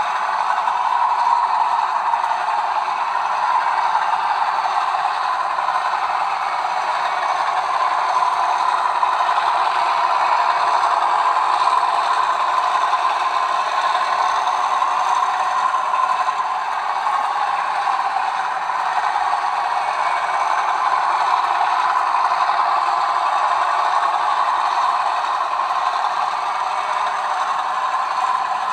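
Model railway freight train running on the layout's track: a steady rattle and clatter of the wheels rolling over rail joints and points.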